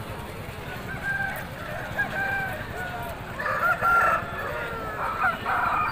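Roosters crowing, several drawn-out calls overlapping, with the loudest a little past halfway and again near the end; the tethered rooster in view crows with its head stretched straight up.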